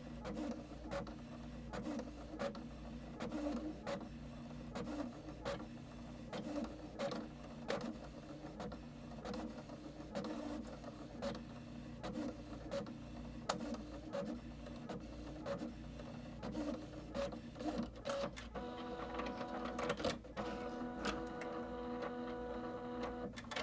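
A small machine running with repeated mechanical clicks over a steady hum; about three-quarters of the way through a steady whine joins in, and it all cuts off suddenly at the end.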